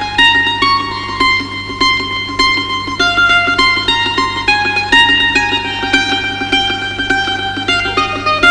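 Background music: a plucked string melody of quick picked notes in a steady rhythm, in the manner of a mandolin.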